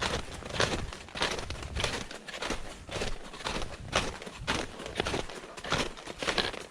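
A hiker's footsteps on a mountain trail during a descent, falling at an even pace of a bit under two steps a second.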